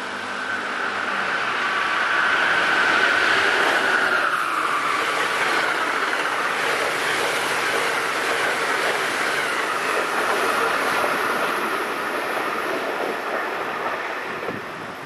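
Amtrak ACS-64 electric locomotive and its passenger coaches passing at speed: a high whine that drops in pitch about four seconds in as the locomotive goes by, then the steady rush of the coaches, fading off near the end.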